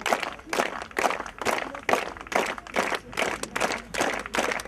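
Crowd of spectators clapping in rhythm, about two claps a second, urging on a shot putter.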